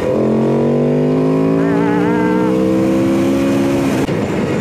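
Aprilia RSV4 RF's V4 engine pulling hard under acceleration, its note climbing steadily for about four seconds and then breaking off near the end at a gear change, with wind rush over the microphone.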